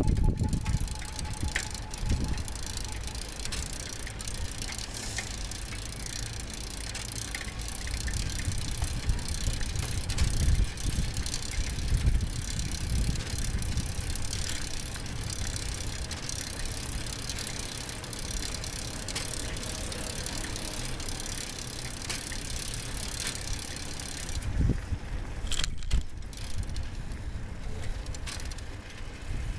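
Bicycle riding along city streets, heard from the bike: a steady rolling hiss with low rumble and occasional knocks and rattles over bumps. The hiss falls away about 25 seconds in, as if the bike slows.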